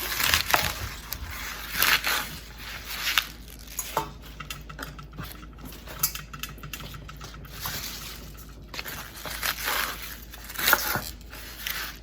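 Knife slicing choi and mustard greens on a cutting board: irregular knocks of the blade on the board with short crisp cutting scrapes, plus a few utensil clinks.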